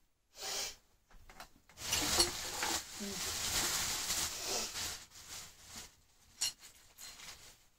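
Rustling and rummaging as items are sorted through by hand. The longest, loudest stretch comes in the middle, with a sharp click about a second and a half before the end.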